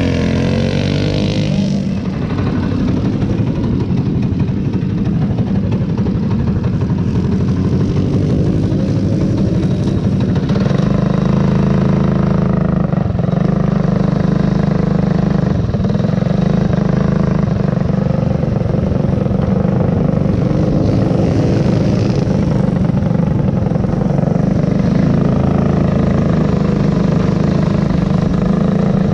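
Go-kart engine running hard, a loud steady drone heard close up from on board the kart. In the first couple of seconds another kart passes with a falling pitch.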